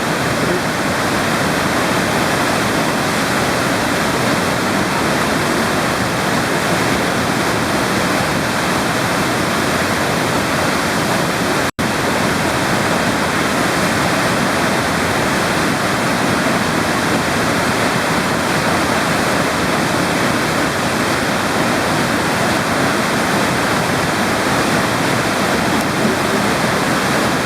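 A waterfall's falling water rushing steadily and loudly, with one instant cut to silence about twelve seconds in.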